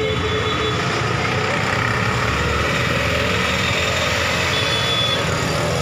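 Steady road-traffic noise from vehicle engines.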